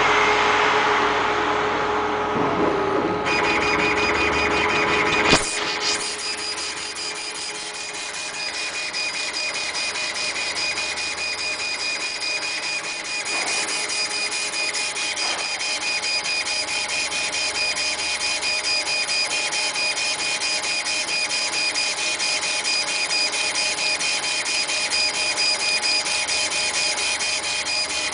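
A CNC laser engraver with a wheel-type rotary attachment running. A steady rushing noise ends about five seconds in with a sharp click. After that the machine's motors give a steady high whine over fast, fine ticking.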